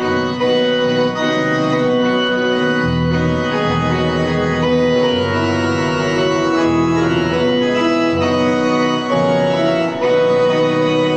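Organ playing a hymn tune in held chords, with the bass notes moving under them about once a second, between the congregation's sung verses.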